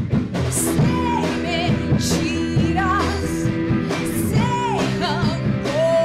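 Rock band playing live: a drum kit, guitar and bass, with a melodic line bending up and down in pitch above them.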